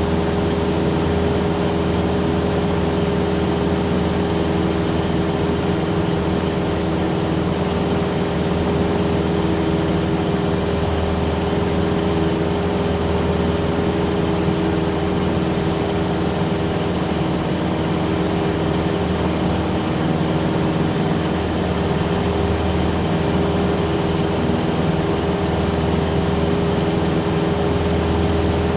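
Cessna 177 single-engine propeller aircraft's piston engine and propeller running at a steady drone.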